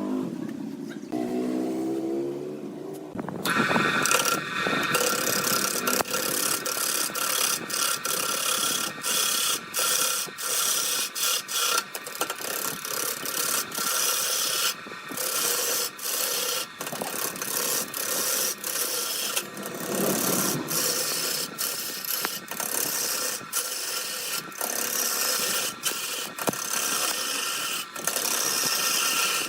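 Wood lathe running with a turning tool cutting into a spinning redwood blank: a rising hum in the first three seconds, then a steady high whine under scraping, broken by many sudden stops and restarts.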